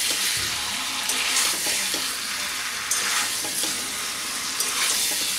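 Fried taro corms and potatoes sizzling in hot spiced oil and ghee in a pan, with a metal spatula stirring and scraping them about once a second as the masala is sautéed into them.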